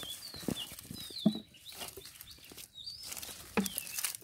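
Birds chirping in short, high calls that bend down in pitch, several times over, with a few sharp knocks or slaps about half a second, a second and a quarter, and three and a half seconds in. The knock at a second and a quarter is the loudest.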